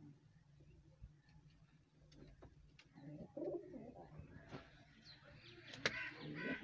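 Domestic pigeons cooing, with low, wavering calls starting about three seconds in. Near the end there is a sharp click and a flurry of wingbeats as a pigeon flaps onto a perch, the loudest part.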